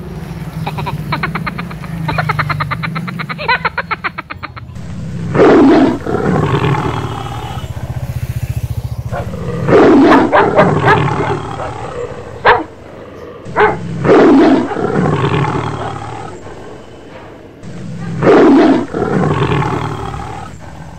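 Recorded tiger roar, played four times about four seconds apart, each loud at the start and trailing off.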